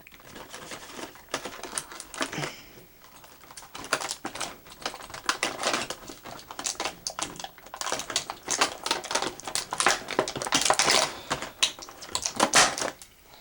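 Die-cast and plastic toy vehicles being handled on a table: a busy run of irregular small clicks and clatters, thickest in the second half.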